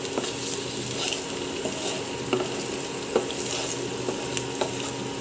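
Garlic and ginger sizzling steadily in hot oil in a pan while being sautéed, with occasional light scrapes and clicks of stirring.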